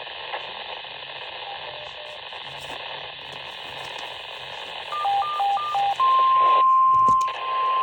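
Radio receiver hissing on an open, quiet channel. About five seconds in comes a two-note high-low beep, three times over, followed by a loud steady single tone: NOAA Weather Radio's alert tone ahead of a broadcast.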